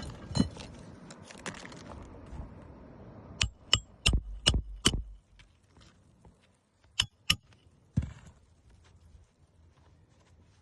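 Hammer driving roofing nails through a new asphalt shingle: five sharp, ringing strikes in quick succession, then two more a couple of seconds later and a single duller knock. A hiss of background noise in the first couple of seconds dies away.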